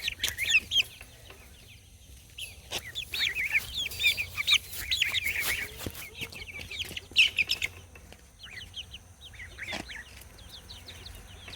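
A brood of Cornish Cross meat chicks peeping: many short, high chirps in bursts, with brief lulls and a few faint knocks.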